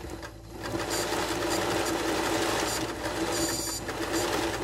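Sewing machine running fast for free-hand machine embroidery, the needle stitching rapidly through hooped cloth, with a steady motor hum underneath. It gets louder about a second in and then runs steadily.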